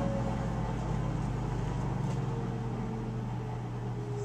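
Steady drone of woodshop machinery running: the vertical belt sander's motor and the dust collection system, with no wood against the belt.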